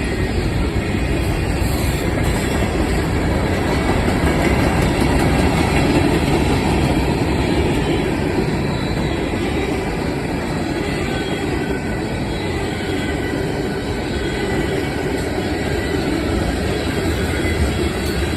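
CSX freight train rolling steadily past, its freight cars' wheels running on the rails.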